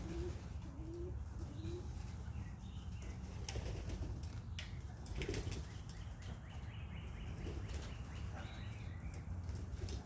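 Young pigeons in a loft flapping their wings, with a few soft coos in the first couple of seconds and some sharp clicks around the middle.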